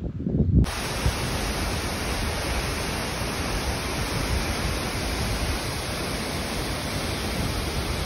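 Steady rushing of a waterfall, a dense even roar of falling water that starts abruptly about a second in. Just before it, brief low rumbles of wind on the microphone.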